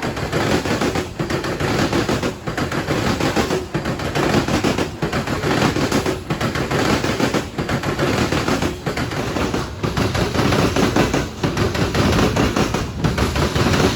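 Train cars rolling past at speed, the wheels clattering rapidly over the rails. The noise dips briefly about every second and a quarter as each car goes by.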